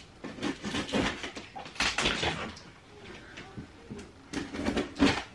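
Scissors cutting into the tape of a cardboard box, with rustling, scraping and irregular knocks as the box is handled. A sharp knock comes near the end.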